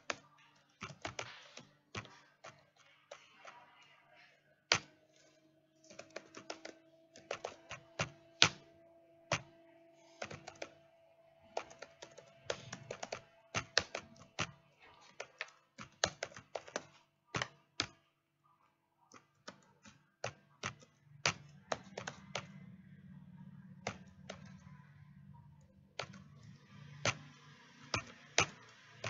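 Computer keyboard typing: irregular runs of keystrokes with short pauses, entering code.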